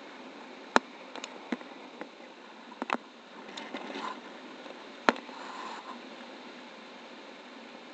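Steady hiss of air rushing past the camera on a paraglider in flight, with a scattering of sharp clicks and knocks, the two loudest about a second in and about five seconds in.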